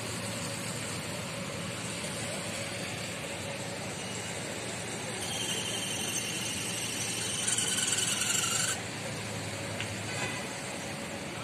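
Steady hiss of rain and traffic on a wet city street. About five seconds in, a high-pitched squeal joins it, holds for about three and a half seconds, and cuts off suddenly.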